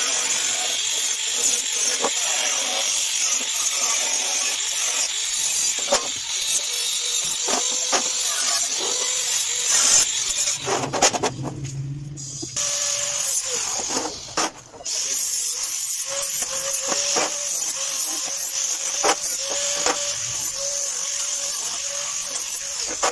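Angle grinder with a cut-off disc cutting steel checker plate, a steady high hiss. It stops for a moment about halfway, dips again briefly soon after, then carries on cutting.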